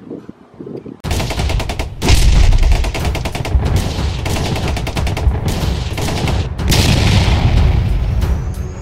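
Sound effects of an animated outro: a rapid, unbroken string of sharp bangs like machine-gun fire, starting about a second in, with a deep boom about two seconds in.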